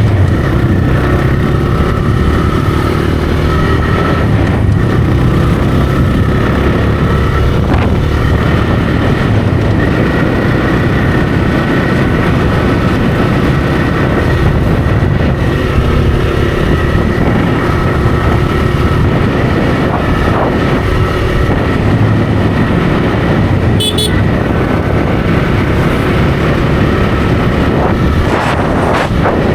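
TVS Raider 125's single-cylinder engine and stock exhaust running steadily while the motorcycle is ridden, over a constant rush of road noise. A brief high, sharp sound cuts through about three-quarters of the way in.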